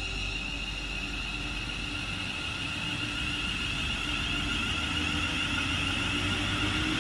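Class 350 Desiro electric multiple unit moving slowly alongside the platform, its traction equipment giving a steady high whine over running noise. The sound slowly grows louder and a lower tone edges up in pitch toward the end, as the train picks up speed.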